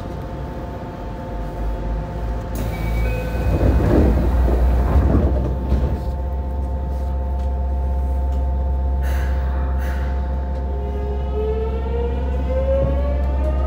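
Yokohama Municipal Subway 3000A car with a Mitsubishi GTO-VVVF inverter, standing with a steady electrical hum under several fixed tones, with a louder spell of noise around four to six seconds in. About ten seconds in, the inverter's whine starts as the train pulls away: several tones rising together in pitch.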